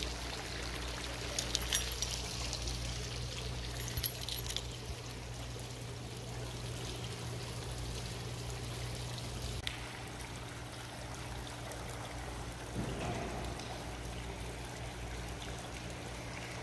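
Water pouring and splashing steadily from a tiered fountain into its pool, over a steady low hum.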